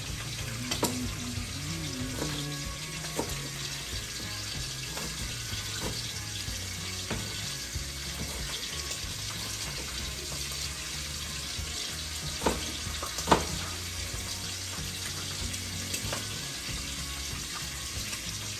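Food sizzling in a hot pan with a steady hiss, broken by occasional sharp clinks of a utensil, the two loudest about two-thirds of the way through.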